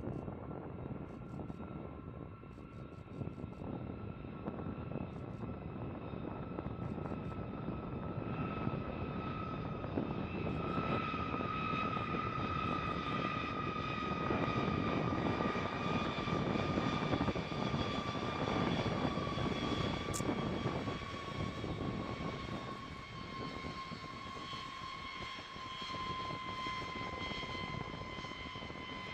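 Boeing B-52 bomber's jet engines running at idle during its landing rollout with the drag chute out: a steady roar under a high whine that slowly falls in pitch, swelling to its loudest about halfway through as the aircraft passes.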